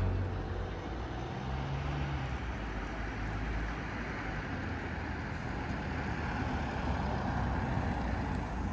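Steady hum of road traffic, an even wash of car and tyre noise with a low rumble underneath.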